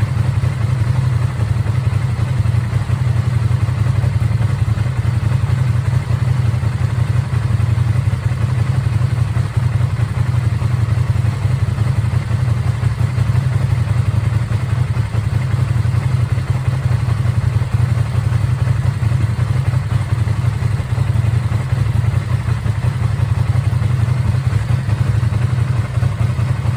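Ducati Streetfighter V2's 955 cc L-twin engine idling steadily through its stock exhaust, holding an even, unchanging beat with no revving.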